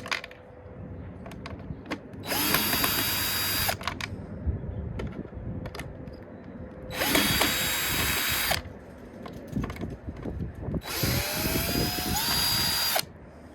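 Power drill-driver run three times, each for about one and a half to two seconds, backing out the screws that hold a car door handle. In the last run the motor's whine rises as it speeds up.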